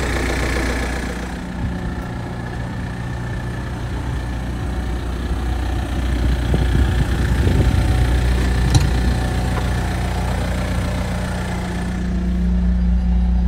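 Rosmech Azura Concept compact street sweeper's engine idling steadily, with a single sharp click about nine seconds in.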